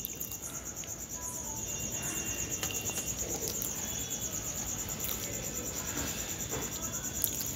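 Crickets trilling steadily in the background, a fast, even, high-pitched pulse. A few faint scrapes of a steel spoon spreading malai on bread over a steel plate.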